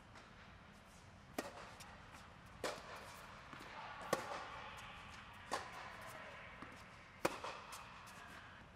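Tennis ball struck back and forth by racquets in a rally, five sharp hits about a second and a half apart, each echoing briefly in the fabric-walled air dome.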